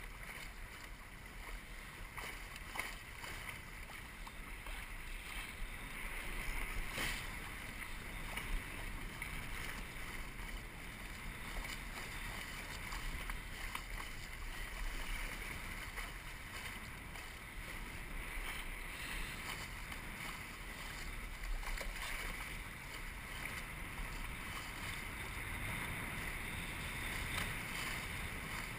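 Musto Skiff dinghy under sail: a steady rush of water along the hull mixed with wind noise on the microphone, with a few knocks.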